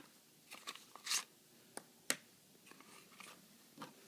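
Light, scattered plastic clicks and scrapes from handling a wireless alarm door/window contact sensor as its cover is opened and a battery fitted, with a sharper click about two seconds in.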